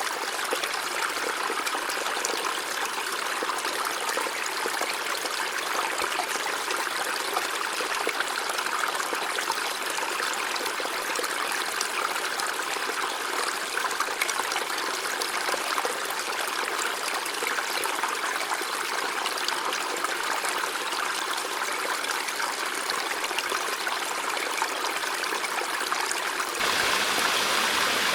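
River water flowing over stones, a steady rushing and trickling. About 26 seconds in it changes abruptly to a louder, brighter rush of water.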